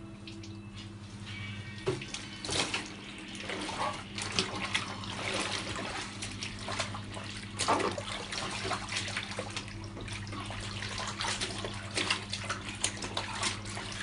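Water sloshing and splashing irregularly in a plastic basin as soaking clothes are worked by hand and trodden underfoot, over a steady low hum.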